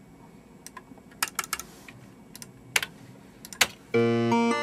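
Scattered clicks of a computer keyboard and mouse while editing in a recording program. About four seconds in, playback of a music track starts abruptly over the studio speakers.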